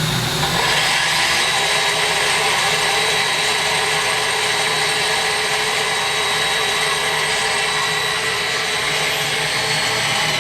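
Live-tool spindle of a Tsugami SS-20 CNC Swiss lathe, the back cross-tool station, running unloaded: a steady high whine with hiss that starts about half a second in and holds even.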